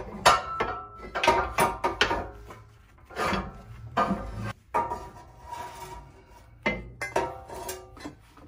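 Shelby GT350's steel rear sway bar clanking and rattling against the suspension and underbody as it is wiggled free: a run of irregular metal knocks, some ringing briefly.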